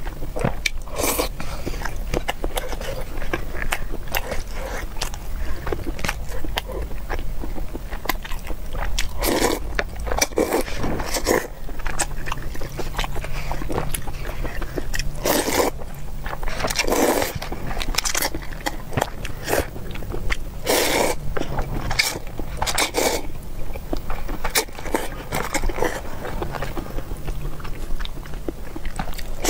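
Close-miked eating sounds of instant cup noodles: irregular chewing, slurping and mouth clicks, with chopsticks stirring and scraping in the paper cup.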